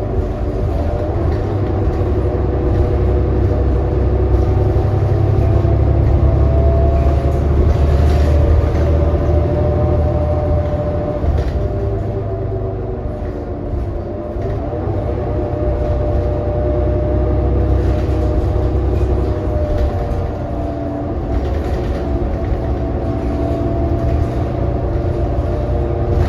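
2018 New Flyer XD40 diesel transit bus under way, heard from inside: a steady low rumble with several whining tones that slowly drop and rise in pitch as the bus changes speed. This is the odd whine that makes this coach sound messed up.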